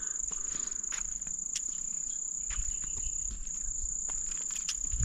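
Insects shrilling in one steady high-pitched drone, with scattered faint ticks over it.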